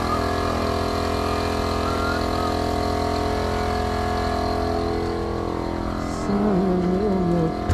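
Steady, even machine drone of an engine or motor running nearby, holding one pitch throughout. A voice comes in over it near the end.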